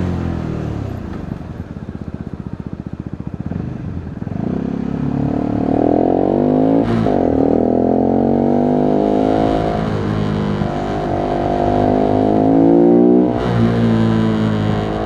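Voge 125R's single-cylinder 125 cc engine coming off the throttle down to a slow idle, then pulling away and accelerating through the gears: the pitch climbs, drops at upshifts about seven and ten seconds in, climbs again and dips sharply near the end.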